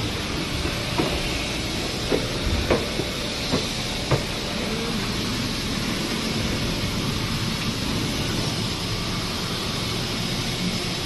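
Steady hiss and hum of an injection molding machine running, with several short, sharp knocks in the first four seconds.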